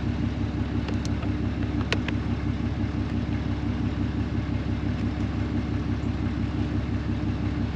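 Pickup truck engine idling steadily with an even, rapid low pulse, heard from inside the cab. Two light clicks come about a second and two seconds in.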